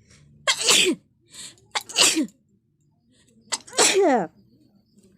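A woman sneezing three times in quick succession. Each sneeze is a sharp burst ending in a voiced tail that falls in pitch. The sneezes come on by themselves, set off by repeated nose blowing.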